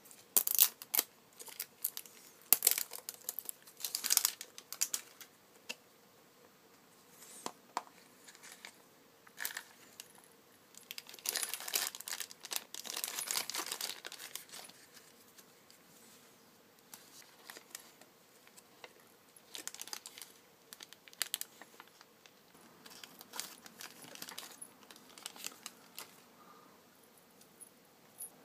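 A plastic gashapon capsule handled and opened: sharp clicks and peeling from its sticker seal and plastic shell in the first few seconds. Then a thin plastic bag crinkles and rustles for a few seconds as a small figure is unwrapped, with lighter rustles and ticks after.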